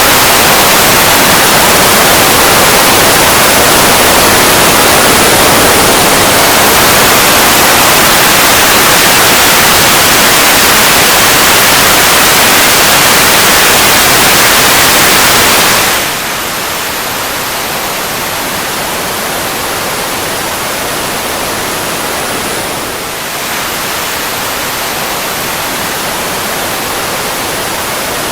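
Steady roar of a fighter jet engine: a loud, dense rushing noise with a faint high whine that slowly slides in pitch. The roar drops abruptly to a softer level about sixteen seconds in.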